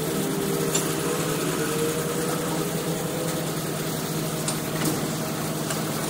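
Truck engine idling steadily, with a few faint metallic clicks over it.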